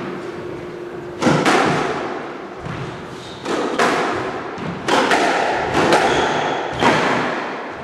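Squash rally: the ball cracking off rackets and the court walls, one sharp hit about every second, each with a short echo.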